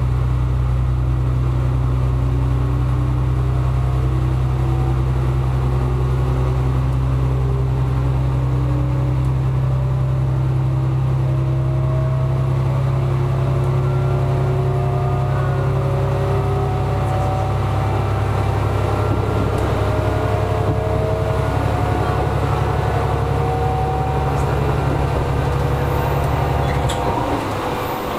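Diesel railcar engine running under power as the train pulls away and gathers speed, heard from inside the car: a steady low drone with a whine that climbs slowly in pitch. Near the end the low drone falls away.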